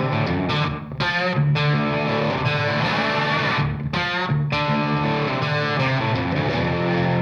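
Background music led by a guitar with distortion effects.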